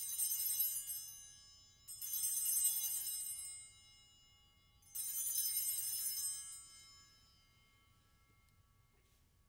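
Altar bells rung three times, a few seconds apart, each ring fading out over a second or two: the Sanctus bells marking the elevation of the host after the consecration.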